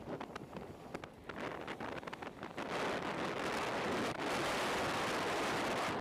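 Wind rushing over the microphone of a moving motorcycle, a steady noise that grows louder about three seconds in.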